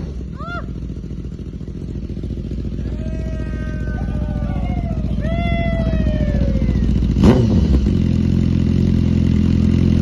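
BMW S1000RR inline-four engine breathing through a full Akrapovic titanium exhaust, idling steadily, with one quick throttle blip about seven seconds in. Freaking loud.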